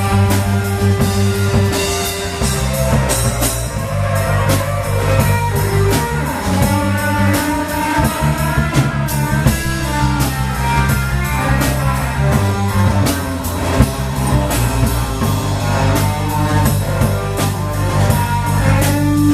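Live blues band playing an instrumental passage: guitar lines over a bass line, with a drum kit keeping a steady beat.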